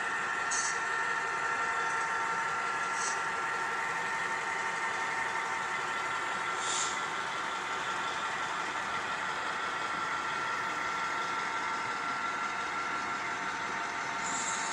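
HO scale model train running on the layout: a steady hum with a few constant tones, with three brief high hisses spread through it.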